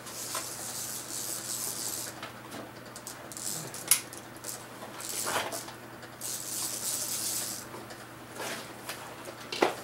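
Hands working parts loose from a vehicle during a teardown: two stretches of scraping and rustling, with a couple of sharp clicks or knocks, about four seconds in and near the end, over a steady low hum.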